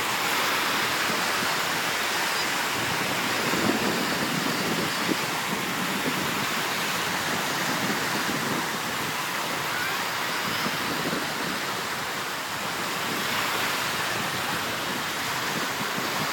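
Small Gulf of Mexico waves breaking and washing up the beach, a steady hiss of surf.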